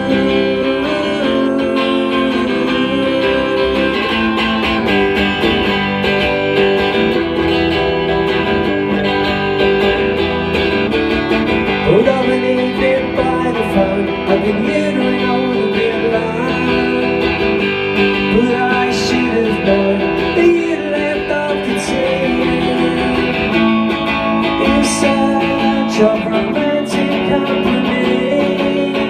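Electric guitar strummed steadily in a solo live performance, chords ringing on without a break.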